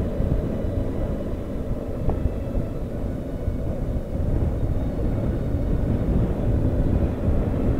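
Steady wind rush on the microphone over a BMW R 1250 GS Adventure's boxer-twin engine running at cruising speed.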